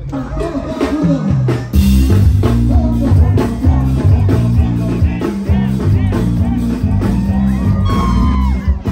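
Band music with a male vocal, playing loud over a heavy, rhythmic bass line; it comes in abruptly about two seconds in.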